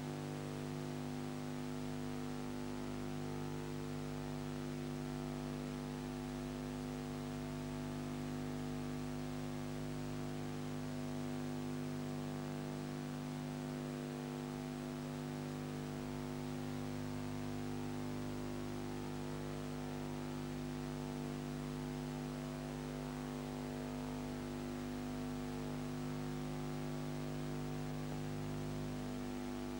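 Steady electrical hum with many constant tones over a soft hiss, unchanging throughout: the background noise of a transfer of silent ciné film, with no sound from the scene itself.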